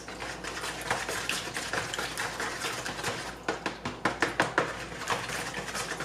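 A whisk beating eggs into Greek yogurt in a plastic mixing bowl: a rapid run of light clicks and taps as the wires strike the bowl, getting louder and quicker about three and a half seconds in.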